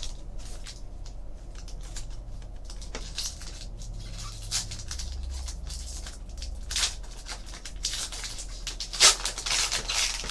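A foil trading-card pack being torn open and its cards handled: irregular crinkling, tearing and rubbing of wrapper and card stock, with the loudest crinkles near the end.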